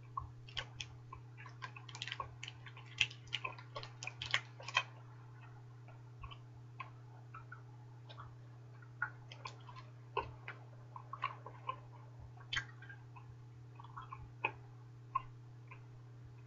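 Wet clicks and smacks of a mouth chewing a large wad of bubble gum, irregular and busiest in the first five seconds, over a steady low hum.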